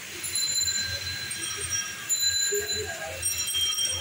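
Onion-and-spice masala with green chillies bubbling and sizzling in hot oil in a wok, with an uneven low bubbling rumble and faint high thin tones coming and going.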